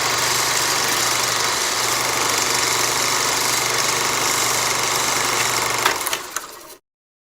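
Projector running with a steady mechanical whir and hum. About six seconds in there are a few clicks, and the sound dies away and cuts off.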